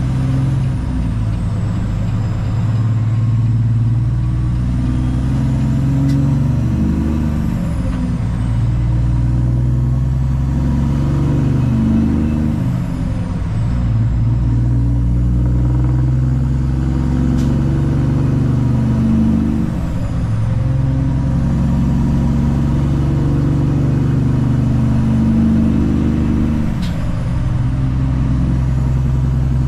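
Cummins ISX diesel engine of a Peterbilt 379 semi truck running under way, a steady low drone whose note breaks and changes pitch several times, as with gear shifts.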